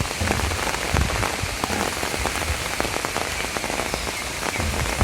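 Heavy cyclone rain pattering on surfaces, with a dense spatter of individual drop ticks over a steady hiss and a low rumble underneath.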